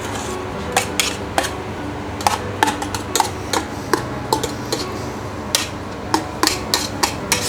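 Kitchen utensils and dishes knocking and clinking in irregular sharp taps, some with a brief ring, as the blended seafood mixture is handled.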